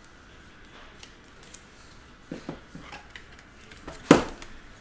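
Handling of a trading card and a rigid plastic toploader: a few small clicks a little past halfway, then one sharp plastic tap or click about four seconds in, the loudest sound.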